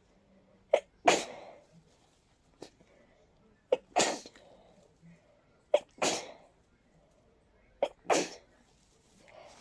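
A person with a head cold sneezing four times in a rapid fit, about two seconds apart; each sneeze opens with a short sharp catch and trails off over about half a second.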